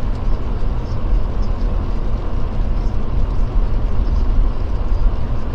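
Jeep Gladiator driving on a snow-covered road: a steady rumble of engine and tyres.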